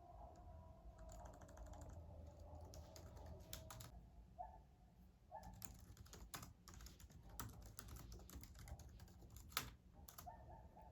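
Faint, scattered light clicks and taps at an uneven pace, with a few short faint tones.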